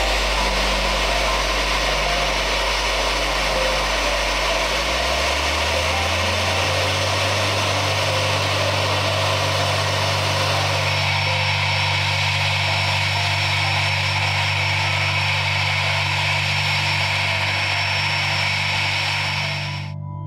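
Steady engine noise from a jet airliner at the gate with a pushback tug hitched to its nose gear. A low hum steps up in pitch about five seconds in. The sound dips briefly at the very end.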